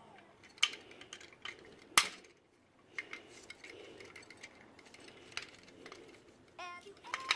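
Sharp metallic clicks and clinks, several of them a second or more apart, as a tool pries the small metal cover off a fuel level sending unit.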